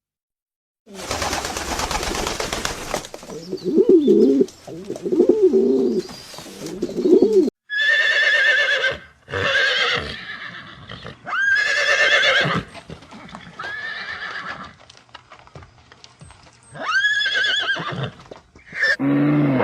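Animal calls: a short rustling burst, then a few low wavering calls, then a series of higher, arching calls repeated about every two seconds.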